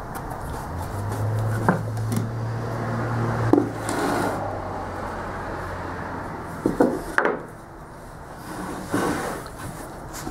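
Plywood pieces being handled against a wooden box and set down on a wooden workbench: light rubbing and scraping of wood on wood, with a few sharp wooden knocks, a cluster of them about two-thirds of the way in.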